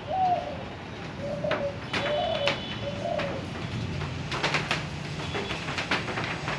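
Spotted dove cooing: four short, hooting notes in the first three and a half seconds, over a steady low rumble, with a run of sharp clicks in the second half.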